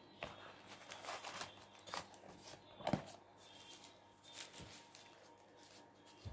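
Printed paper food wrapper and cardboard takeaway box rustling and crinkling as a wrapped item is pulled out of the box and handled, with a single knock about three seconds in.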